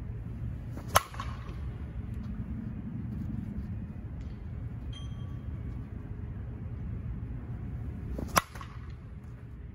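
Slowpitch softball bat striking the ball twice, about seven seconds apart: each hit is a single sharp crack with a brief ringing tail, over a steady low background rumble.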